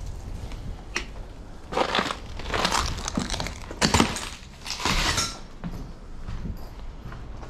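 A sharp click, then several seconds of crunching and crumpling as someone clambers through debris, loudest in the middle and dying down after about five seconds.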